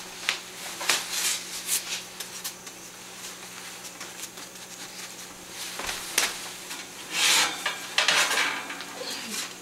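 Metal baking tray and kitchen utensils clattering, with scattered clinks, knocks and scrapes, as the baked pita chips are taken out of the oven.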